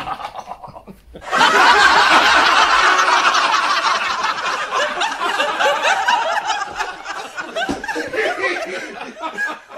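Laughter from many people, a canned laugh track, breaking out suddenly about a second in and slowly dying down toward the end.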